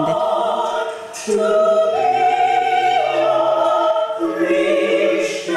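Gospel choir singing sustained notes in harmony, moving to a new chord every second or two.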